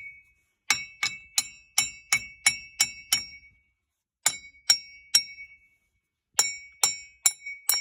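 Steel hammer striking a wheel hub assembly with a ringing metallic clang, in three runs of quick blows (eight, then three, then four), knocking the stuck hub loose from the steering knuckle.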